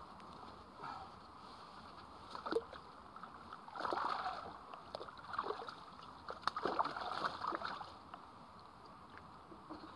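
Fishing tackle being handled and packed into holdall bags: rustling of nylon and plastic with scattered sharp clicks, busiest about four seconds in and again from about six and a half to eight seconds, over a steady low hiss.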